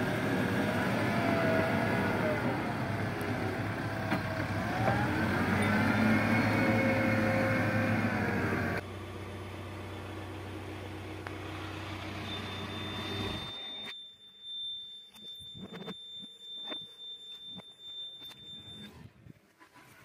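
Backhoe loader's diesel engine working on a site, its pitch rising and falling. After a cut it idles, heard from inside the cab, and stops about 13 seconds in. Around the stop a steady high beep sounds for about six seconds, and clicks and knocks follow.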